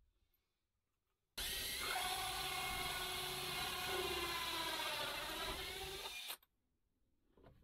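Cordless drill running a hole saw through a wooden floor. It starts abruptly about a second and a half in, runs steadily with its pitch sagging slightly under load, and cuts off abruptly near the end.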